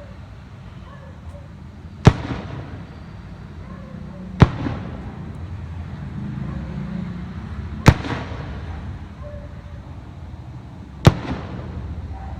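Fireworks shells bursting overhead, heard through a smartphone's microphone: four sharp bangs a few seconds apart, each with a short echoing tail, over a steady low background rumble.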